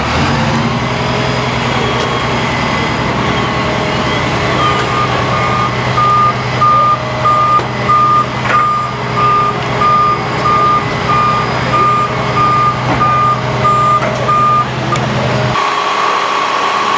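A fire truck's reversing alarm beeps a bit more than once a second over its running diesel engine, starting about four or five seconds in and stopping near the end. The engine sound then cuts off abruptly.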